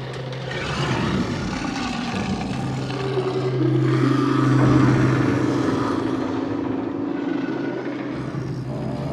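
Sound-designed dark sci-fi horror ambience: a steady low drone under a rushing, swelling noise that peaks about halfway through, with a held higher tone coming in around the middle.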